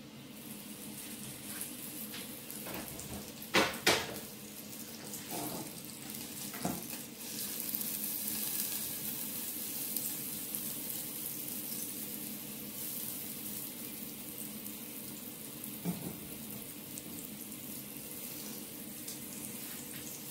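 Butter melting and sizzling in a hot saucepan: a steady hiss that grows stronger after several seconds. Two sharp knocks of the pan or wooden spatula come about three and a half seconds in, with a few fainter knocks later.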